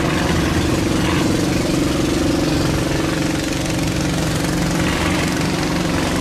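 Motorboat engine running steadily at constant speed, an even hum that neither rises nor falls.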